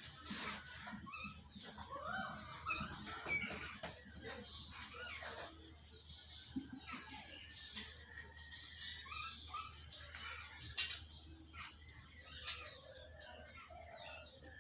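Steady high-pitched insect drone with scattered short bird chirps over it, and a few sharp clicks late on.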